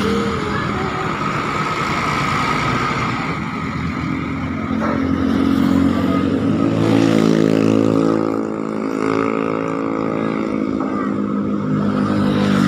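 Bus basuri horn playing a tune in held notes that step from pitch to pitch, starting about three seconds in, over engine and traffic noise.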